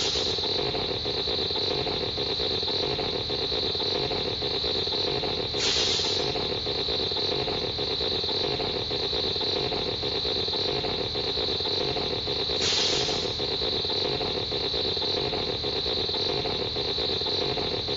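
Baltan science-fiction sound effect: a steady droning hiss with a brief brighter swell of hiss near the start, about six seconds in and about thirteen seconds in, repeating like a loop.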